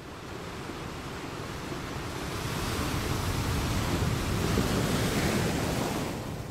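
Open-sea ambience of waves and wind, a steady rushing wash that fades in, swells, and fades away.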